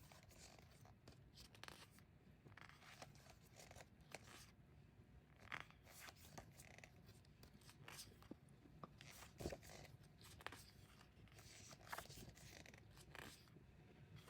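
Faint, scattered paper rustles and light taps: the pages of a glossy photo book being handled and turned.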